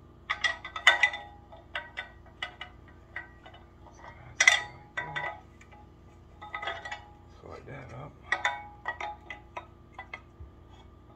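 Aluminium climbing sticks clanking and clicking against each other as they are slid and nested together: a string of sharp metallic knocks with a ringing tone, the loudest about a second in and again about four and a half seconds in.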